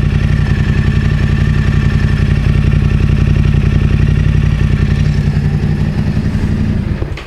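Yamaha Ténéré 700's parallel-twin engine idling steadily, then switched off near the end, its running cutting out.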